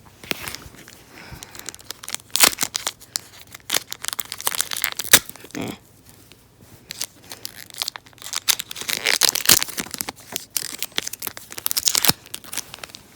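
Foil Pokémon booster pack wrapper being torn open and crinkled by hand: irregular crackling and rustling in several busy stretches.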